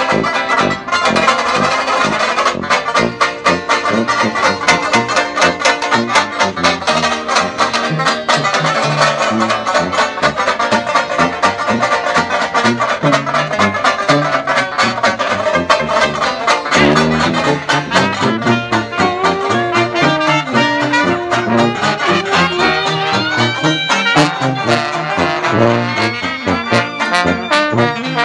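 Live traditional jazz band playing: two banjos strum a steady beat under sousaphone bass lines, with trombone lines over the top.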